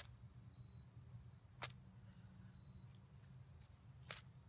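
Three short, sharp scrapes of a tiny ferrocerium rod struck down against a scraper, throwing sparks at cotton-ball tinder, spaced about one and a half to two and a half seconds apart.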